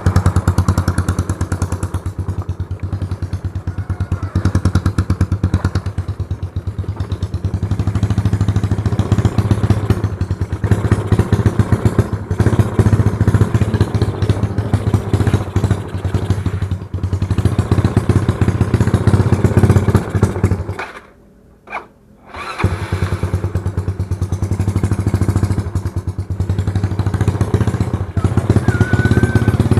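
Yamaha Mio scooter's single-cylinder engine running loud through an aftermarket Hispeed exhaust pipe, the throttle worked so the level rises and falls. About 21 seconds in it goes quiet for a second or so, then runs again.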